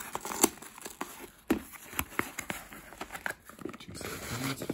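Cardboard mailer box being opened by hand: flaps rustling and scraping, with irregular sharp crackles and taps as the cardboard is bent and handled.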